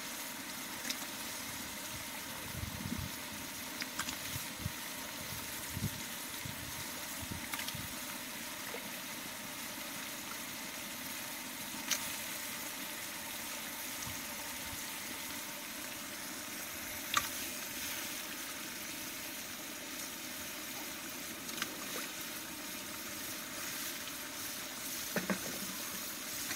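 Steady sizzling hiss of hot oil and fried onions in a large aluminium cooking pot as raw chicken pieces go in, with a few soft thuds in the first several seconds and scattered sharp crackles.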